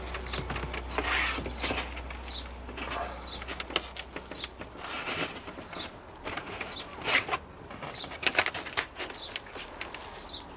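Plastic interior trim of a Mini's roof pillars being worked loose by hand: irregular clicks, snaps and scraping rustles, busiest a little past the middle.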